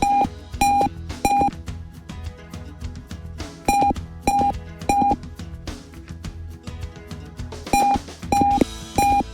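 Piezo buzzer driven by an Arduino Uno sounding an intruder alarm. It gives short, steady, high beeps, three at a time about two-thirds of a second apart, with each run repeating roughly every four seconds, over background music with a drum beat.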